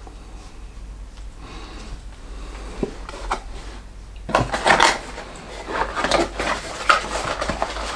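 A small cardboard box being handled and opened: rustling, scraping and clicking of card, which starts about halfway through after a couple of light clicks.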